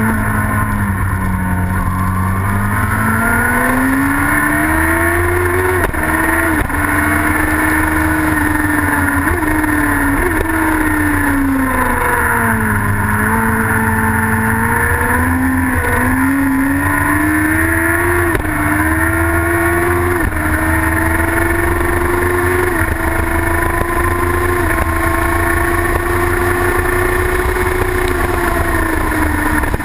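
Racing sidecar's engine heard on board at race pace. Its pitch climbs and falls as it speeds up and slows for corners, with several quick dips as it shifts gear, over a steady rushing noise.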